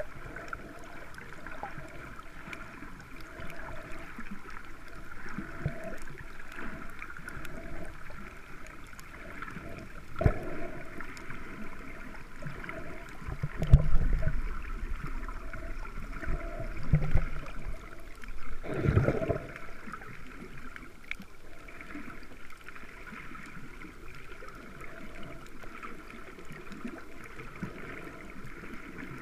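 Underwater sound picked up by a snorkeller's action camera: a steady hiss of water with a faint pulsing hum, broken by a few low thumps and sloshing surges of water movement around the middle.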